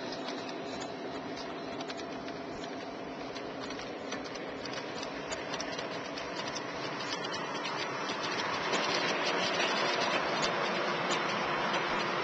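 O-gauge model freight train rolling by on three-rail track: a steady rumble of metal wheels with rapid fine clicking, growing louder about eight seconds in.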